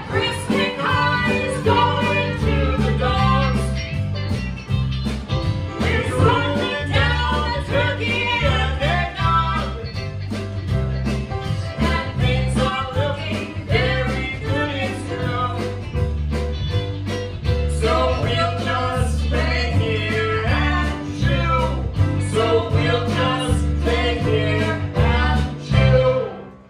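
A man and a woman singing a musical-theatre duet over a live band of piano, electric guitar and drums. The song stops abruptly near the end.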